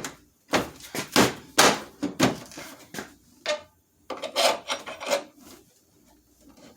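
Short, rough scraping strokes, several in quick succession in two runs: a hand tool rubbing and grating on a light housing while working at a stripped screw.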